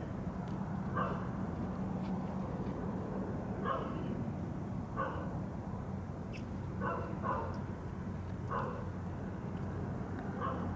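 Short animal calls, about seven of them at uneven gaps of one to three seconds, over a steady low hum.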